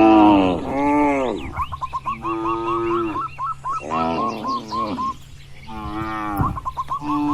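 Cattle mooing again and again, five or six calls of about half a second to a second each, some sliding up and down in pitch and one held more level. Between the moos runs a quick, evenly spaced series of short chirps, about four a second.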